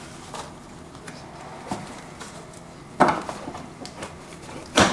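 Hands working at a plastic windshield washer fluid reservoir to unplug its pump-motor connector: a few light clicks, then two sharp knocks, about three seconds in and again near the end.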